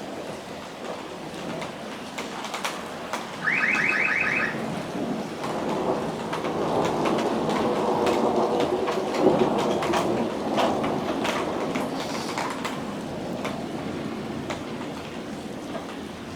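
Heavy thunderstorm rain hissing steadily, with scattered sharp drip clicks. About three and a half seconds in there is a short burst of rapid electronic beeping lasting about a second. Through the middle the sound swells louder and lower for several seconds, then eases off.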